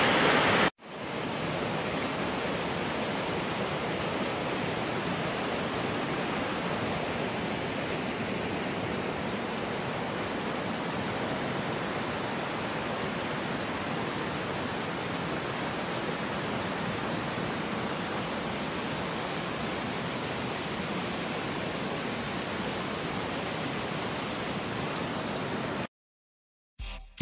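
Steady rush of falling water from a small woodland waterfall. About a second in it cuts abruptly to a slightly quieter rush, which stops suddenly near the end, where guitar music begins.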